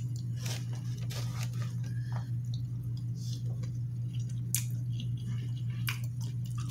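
Close-up chewing of a mouthful of food, soft wet squishing with scattered small mouth clicks, over a steady low hum.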